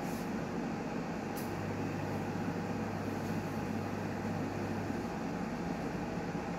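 Newmed Kronos S benchtop steam autoclave running a sterilising cycle: a steady mechanical rush. After a click about a second and a half in, a low hum joins it and stops about five seconds in, typical of a pump or valve working inside the unit.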